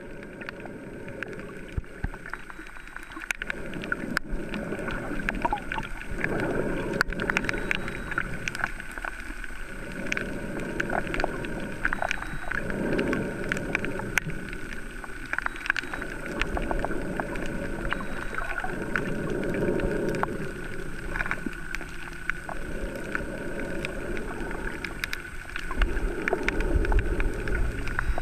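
Muffled underwater sound picked up by a camera held beneath the surface while snorkelling over a coral reef: a low rushing of water that swells and fades every few seconds, with scattered small clicks.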